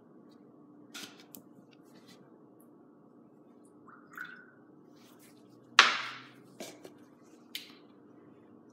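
Small cups of water being handled and poured out on a stone countertop: light clicks and taps with some dripping, and one louder, sharp knock about six seconds in.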